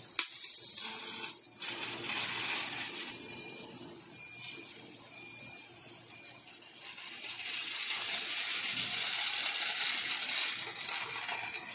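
Fiber laser cutting head working on sheet metal: the hiss of high-pressure assist gas and sparks at the cut. It comes in uneven stretches, with a sharp click just after the start and the longest, loudest hiss in the second half.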